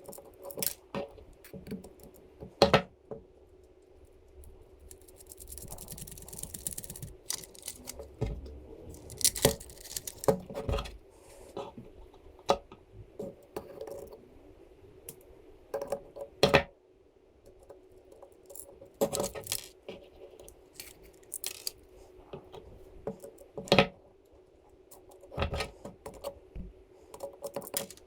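Irregular clicks and clinks of small metal screws, nuts and washers and hard plastic parts being handled and set down during hand assembly of a 3D-printed model, over a faint steady hum.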